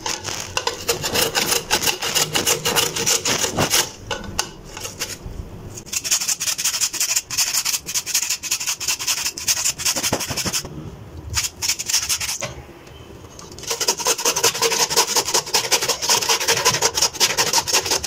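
Raw potato being grated on a small flat metal hand grater: a rapid run of rasping strokes, broken by a couple of short pauses.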